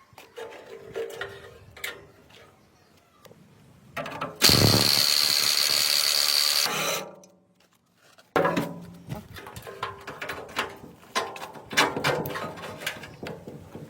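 A power tool runs steadily for about two seconds, with a steady high whine over the noise, among repeated metal knocks and taps of parts being handled.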